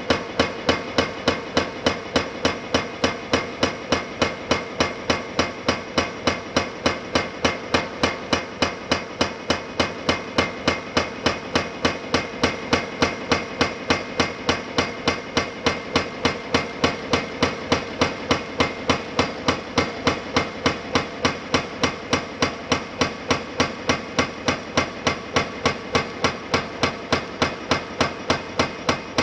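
Hydraulic breaker on a CAT 330F excavator hammering concrete, striking in a steady, even rhythm of about three blows a second.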